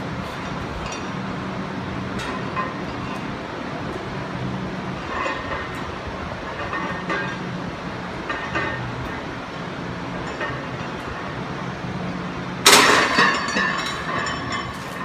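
Loaded barbell racked onto the steel uprights of a bench, a loud metallic clank with rattling plates that rings and fades over a couple of seconds, near the end. Before it, a steady low hum with a few faint soft sounds.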